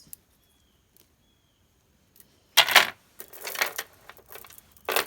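Glass bead strands and their packaging being handled: after a quiet start, a sharp clattering burst about two and a half seconds in, then softer rattling and clinking, and another sharp burst near the end.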